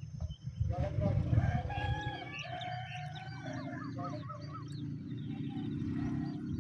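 A bird calling: a run of varied whistled and warbling notes, with a quick wavering trill near the middle, over a steady low rumble.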